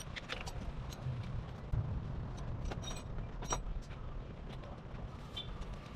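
Hand tools working on a motorcycle engine: a few scattered sharp metallic clicks and clinks over a low steady hum.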